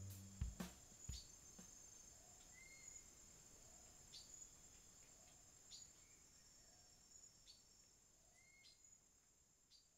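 Faint insect chorus: a steady high trill with scattered ticks and a short rising chirp about every second and a half, fading out toward the end. A few last drum hits of music sound in the first second.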